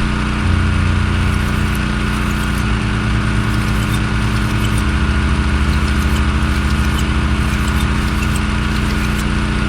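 Gas-engine pressure washer running steadily.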